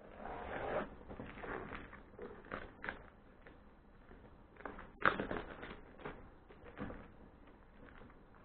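Plastic-wrapped mail package being opened and handled: irregular rustling and crinkling, with a sharp click about five seconds in.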